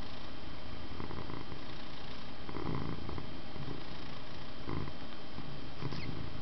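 Old, heavy (12 kg) domestic cat purring steadily, close to the microphone, the purr swelling every second or two over a constant background hiss.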